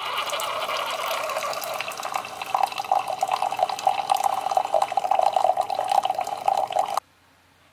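Single-serve pod coffee maker brewing, a thin stream of coffee splashing and trickling into a ceramic mug. The stream stops abruptly near the end.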